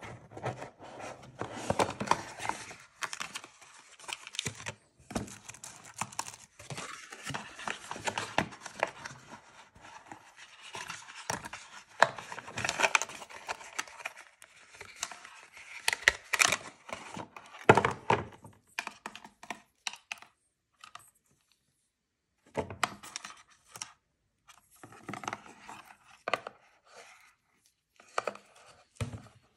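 Hands handling a small card box and wired RC electronic parts: irregular rustling, scraping and sharp clicks of packaging and components. It stops for a couple of seconds about two-thirds of the way through.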